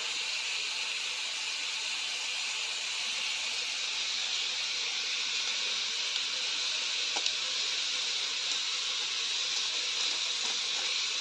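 A steady, even hiss with no change in level, and a faint tick about seven seconds in.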